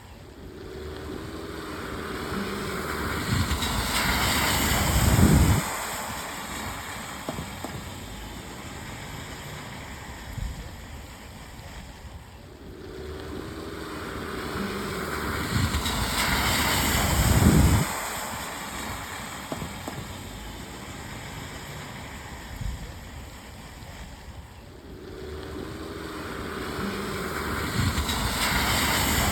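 Cars driving through puddles on a wet road in the rain: the tyres' splashing hiss swells as each car approaches, peaks, then drops off abruptly. A short loop repeats about every twelve seconds, so this happens roughly three times.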